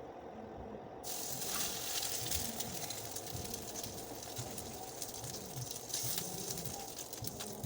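Food sizzling in hot oil: the hiss starts suddenly about a second in, as the food meets the pan, and runs on with scattered crackles.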